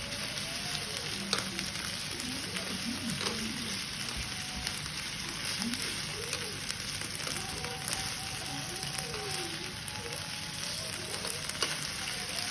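Beef sizzling on a barbecue grill: a steady hiss with scattered small crackles and pops.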